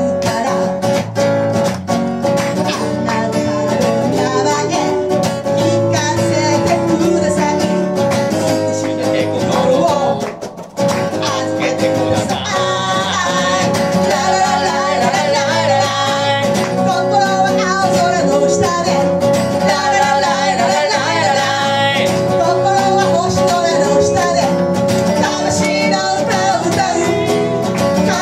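Live blues-rock song: a female vocalist singing over guitar. The music drops out for a moment about ten seconds in, then carries on.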